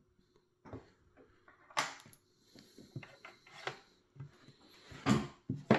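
Hands handling a puzzle box: scattered small clicks, taps and rustles as its parts are moved, with a few sharper knocks, the last two near the end.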